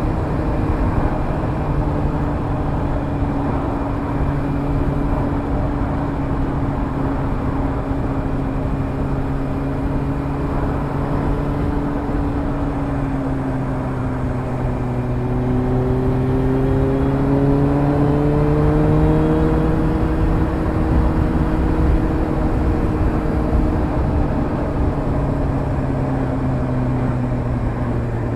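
Suzuki GSR750's inline-four engine running through a Fuel Diablo slip-on exhaust with the dB-killer fitted, cruising steadily. The engine note climbs gently a little past halfway, then sinks again near the end.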